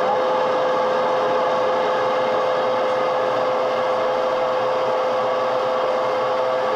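Klarstein glass-bowl air fryer running mid-cook: its convection fan gives a steady whir with a constant hum over it.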